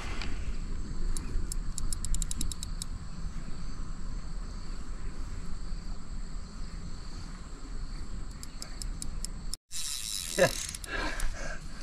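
Spinning reel clicking in fast runs while a strong hooked fish is played, once about a second in and again near the end. A brief voice follows near the end.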